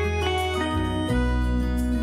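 Background music: gentle instrumental with plucked acoustic guitar over a sustained bass, notes changing every half second or so.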